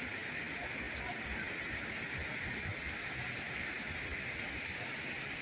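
Steady rushing hiss of water falling down a stepped cascade fountain, with a low rumble underneath.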